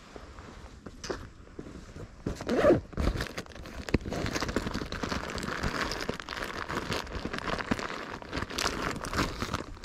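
Rustling and crunching of someone pushing through dry brush and leaves: a dense run of irregular crackles and scrapes, loudest about three seconds in.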